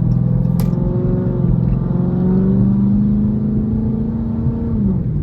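Chrysler 300's V8 engine pulling under hard acceleration, heard from inside the cabin, its pitch climbing steadily for about four and a half seconds and then falling away sharply near the end. A brief click comes about half a second in.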